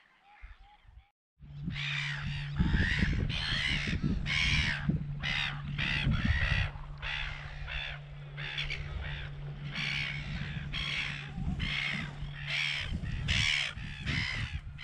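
A flock of seabirds calling over and over, about two calls a second, starting about a second in. A steady low hum runs underneath.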